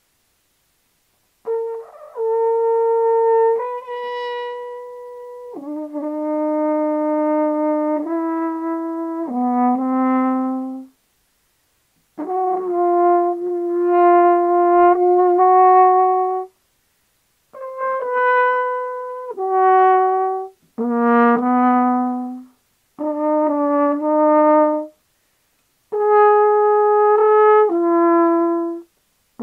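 Music: a slow brass melody, horn-like, played as phrases of held notes that step from one pitch to the next, with short pauses between phrases.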